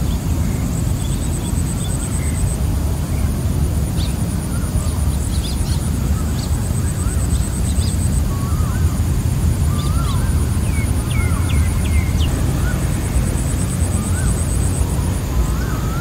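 Evening wetland chorus: insects trilling in high, rapidly pulsing trains that start and stop, and birds giving short rising whistles and chirps, more often from about eight seconds in. Underneath is a steady low rumble.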